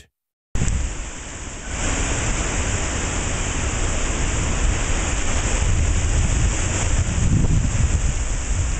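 Steady wind-and-rain noise of a severe thunderstorm, with low rumble on the microphone. It starts after a brief silence and gets louder about two seconds in.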